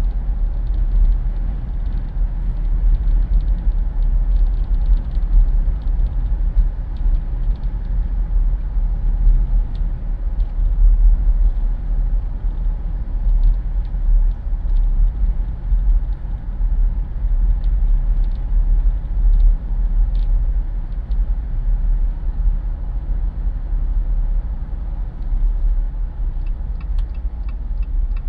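Wind buffeting through the open windows of a Jeep Wrangler on the move, over a deep steady rumble of road and engine noise. A faint regular ticking comes in near the end.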